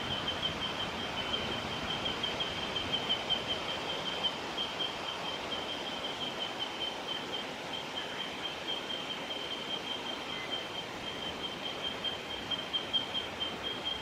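A steady high-pitched trill, rapidly pulsing and held at one pitch throughout, over a constant outdoor hiss.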